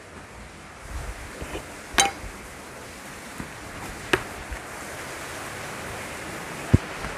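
A few scattered sharp clicks and knocks over a steady hiss, the loudest a short low knock near the end: steps in new plastic-soled shoes and the phone being handled as it moves.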